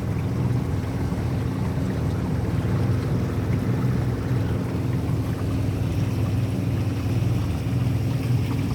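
Boat motor running steadily under way, with an even rush of water and wind noise over it.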